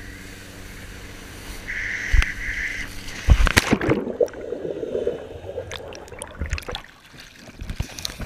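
Water rushing past an action camera towed behind a boat, then a loud splash as the wakeboarder crashes into the river about three seconds in. The camera goes under, giving a muffled underwater churning, then comes back up with drips and knocks of the camera being handled at the surface.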